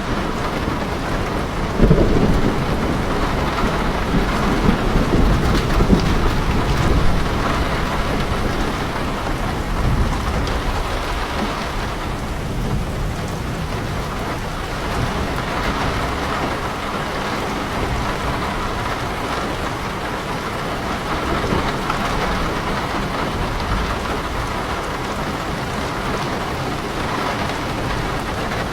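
Heavy rain falling steadily on leaves and a house, a dense even hiss. From about two seconds in a low rumble swells under it for several seconds, then fades.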